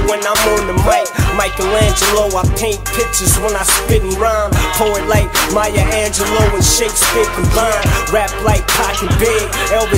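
Hip hop music with a steady drum beat and a vocal line.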